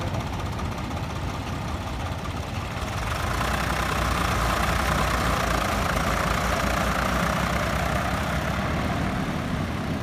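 Same 603 4WD tractor's three-cylinder diesel engine running, picking up and getting louder about three seconds in as the tractor drives off across the sand.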